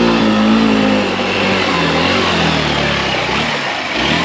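Hero Xtreme 160R's single-cylinder engine running as the bike wades through a river. The engine note holds steady, then drops in pitch from about a second in, over water splashing around the wheels and the rider's feet.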